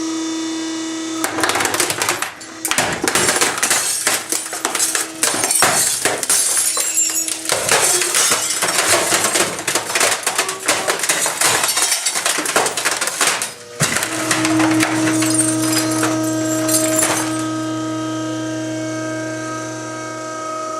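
A compactor's motor hums steadily while coffee makers are crushed. For about twelve seconds there is a dense, continuous run of cracking, snapping and breaking plastic and glass. Then the machine hum goes on nearly alone, with a few last cracks.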